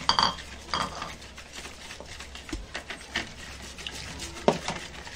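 Metal wire whisk beating a thin wheat-milk and egg batter in a plastic bowl: quick, irregular clicks and scrapes of the wires against the bowl.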